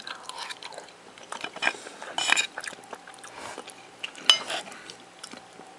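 Someone chewing a mouthful of food, with a few small clicks and scrapes of a metal spoon against a plate; the sharpest click comes about four seconds in.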